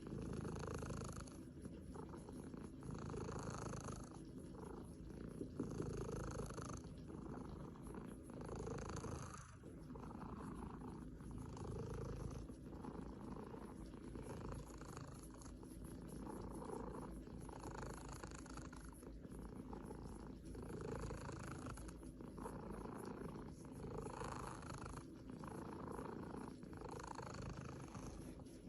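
Cat purring steadily and close up, swelling and fading with each breath about once a second.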